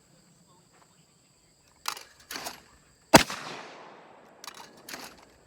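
Over/under shotgun firing a single shot at a clay target about three seconds in, a sharp bang with a long echoing tail, preceded by two quieter bangs and followed by a few light clicks.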